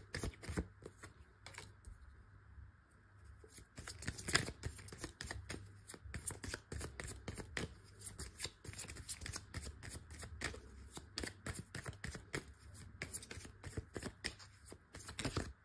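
A tarot deck being shuffled by hand: a long run of quick, soft card flicks with a short lull about two seconds in.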